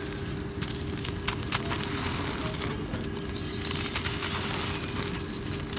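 Hands crumbling and crushing chunks of dry, gritty cement: a dense run of small crackles and grainy crunching as the pieces break and grit falls.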